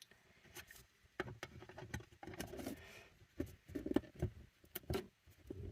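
Plastic lid being fitted onto a small tub, with scattered light clicks and knocks of plastic handling.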